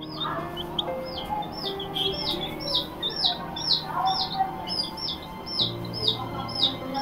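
Baby chick peeping steadily, short high chirps about two a second, over background music with long held notes.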